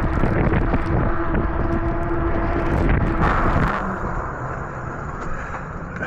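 Strong wind buffeting the microphone over the rumble of a fat-tyre e-bike being ridden, with a steady hum underneath. About four seconds in the noise drops and turns duller.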